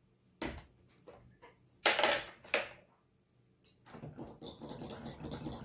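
A metal spoon knocking and clinking against a small drinking glass: a few separate sharp knocks, then rapid steady clinking from just before the four-second mark as the spoon stirs warm water into yeast.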